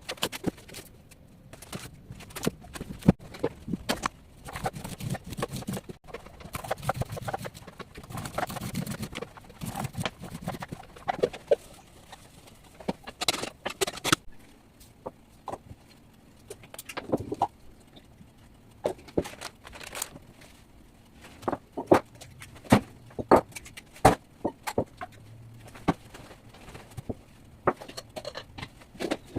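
Kitchen clatter while making cake batter: repeated knocks and clinks of utensils, bowls and containers, at irregular intervals.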